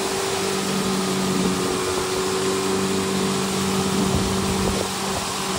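2013 Yamaha 8 hp four-stroke twin-cylinder outboard, fitted with a 9.9 hp carburetor, running steadily at speed with a constant hum. Water rushes from the wake and wind beneath it.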